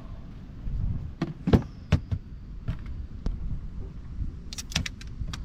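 Irregular knocks and clicks of gear being handled in a small boat, the loudest knock about a second and a half in and a quick run of clicks near the end, over a low rumble.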